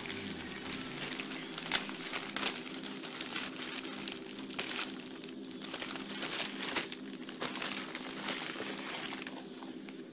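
Clear plastic bag around a magazine-and-figure pack being opened and handled, crinkling and crackling continuously with a few sharper crackles. It dies down about nine seconds in.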